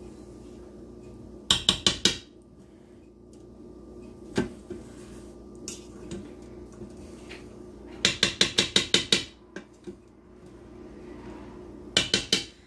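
Metal spoon rapping quickly against the stainless steel inner pot of an electric pressure cooker, in three short runs of sharp taps: about a second and a half in, around eight seconds in, and near the end.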